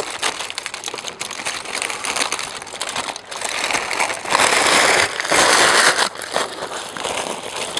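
Aluminium foil and baking paper crinkling and rustling as a foil packet is held open and folded back, louder in two stretches past the middle.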